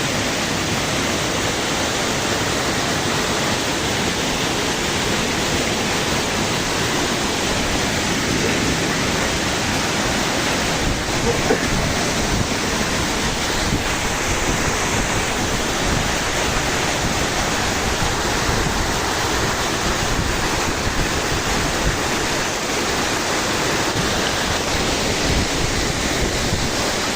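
Small waterfall: a steady, even rush of falling water.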